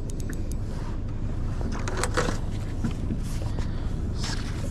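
Steady low rumble of wind and boat noise, with a few quick ticks from a spinning reel being wound at the start and brief washes of noise, one around two seconds in and one just after four seconds in.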